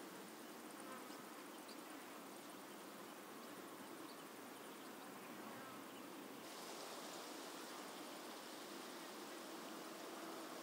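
Faint outdoor ambience of insects buzzing over a steady hiss; the hiss grows brighter about six and a half seconds in, and a steady low buzz sets in near the end.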